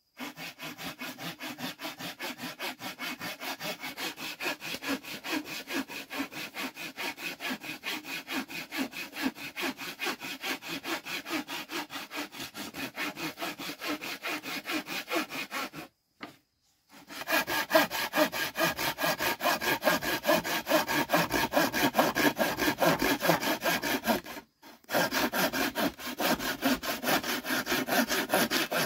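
Handsaw cutting a thin wooden board in quick, even back-and-forth strokes. The sawing stops for about a second just past halfway and again briefly later. It is louder after the first stop.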